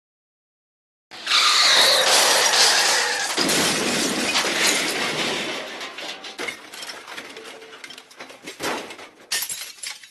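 MGM cartoon 'elephant smash' sound effect: about a second in, a sudden loud crash of shattering glass and breaking debris with a high squeal over its first two seconds, dying away into scattered clinks of falling pieces.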